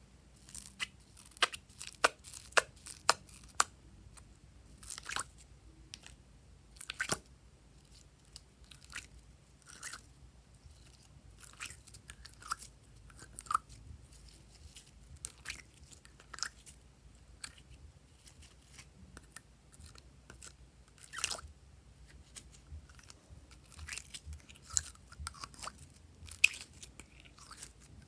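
Slime being kneaded and pressed by hand, giving irregular sticky clicks and small pops, with a quick run of them in the first few seconds.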